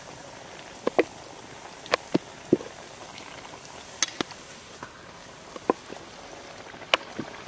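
Wooden rolling pin knocking and clacking on a wooden board while spinach puri dough is rolled out: about ten sharp, uneven knocks over a steady bubbling hiss.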